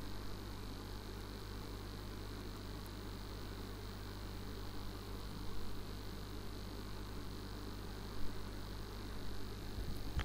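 Steady electrical mains hum over a low hiss, the interference on the recording line while nobody speaks, with a couple of faint bumps.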